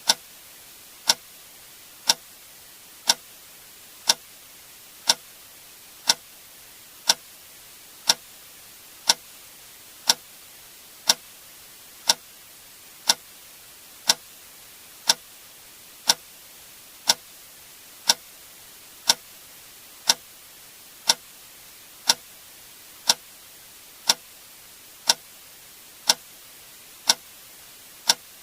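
A single sharp click sound effect repeating once every second, like a clock tick, over a faint steady hiss.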